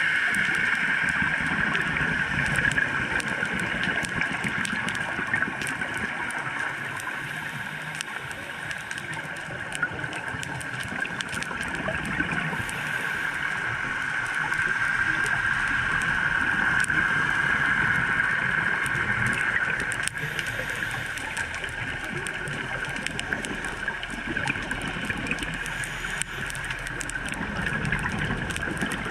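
Underwater sound picked up by an action camera sealed in its waterproof housing: a steady muffled water hiss with a constant mid-pitched hum that swells and fades slowly.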